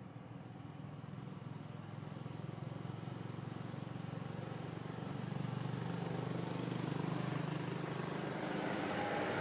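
A motor vehicle's engine hums steadily in the distance and grows gradually louder as it approaches, with more rushing noise near the end.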